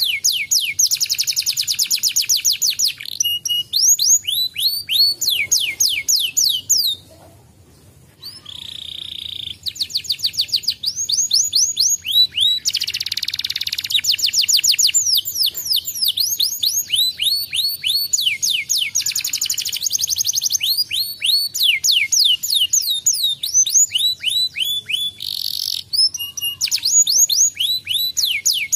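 Domestic canary singing a long, continuous song of fast trills, each a quick run of repeated high notes, with a short break about seven seconds in.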